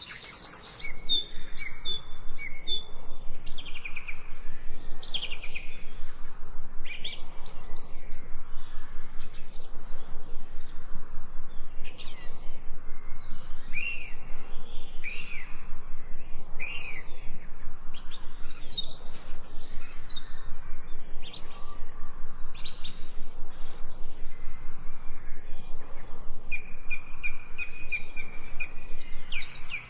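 Several wild songbirds chirping and singing over one another: a steady stream of short high chirps, trills and whistled glides.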